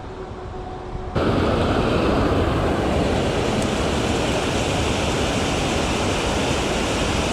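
Rushing creek water: a steady rush that jumps suddenly louder about a second in, then holds even.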